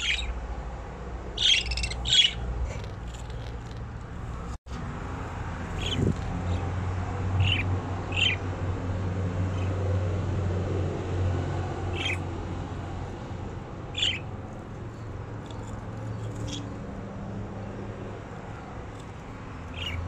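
Caged budgerigars giving short, scattered chirps and squawks, about ten calls, the loudest pair a couple of seconds in, over a low steady hum.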